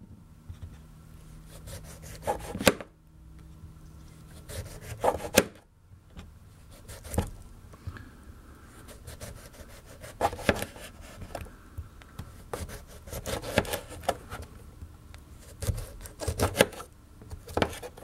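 Folding pocket knife with a slim 4-inch D2 steel blade slicing a lemon into rounds: a series of sharp knocks, irregularly every second or two, as the blade cuts through and meets the bench top, with soft rubbing between the cuts.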